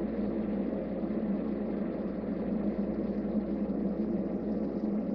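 TIG welding arc from an Eastwood TIG 200 running near its full 200 amps, making a fusion pass with no filler on quarter-inch stainless steel. It is a steady hiss over a low hum.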